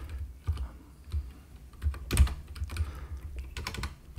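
Typing on a computer keyboard: scattered keystrokes at an uneven pace, each a click with a low thud, the loudest about halfway through.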